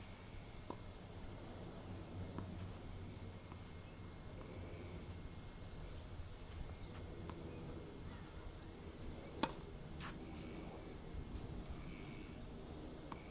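Tennis ball pops from racket hits and bounces on the court, single sharp knocks several seconds apart, the loudest about nine and a half seconds in. A faint steady high tone runs underneath.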